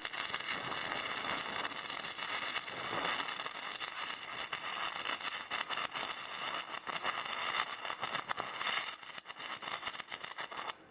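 Electric arc welding: the arc crackling and sizzling steadily as a bead is laid, starting abruptly as the arc is struck, turning patchy and sputtering near the end, then cutting off as the arc is broken.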